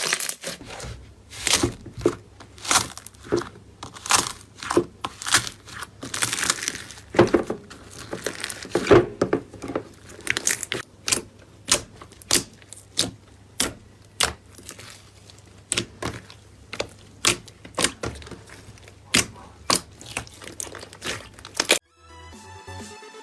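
Slime worked by hand, giving sharp crackling pops and clicks, about one or two a second with some crackly runs. Near the end it stops abruptly and electronic music begins.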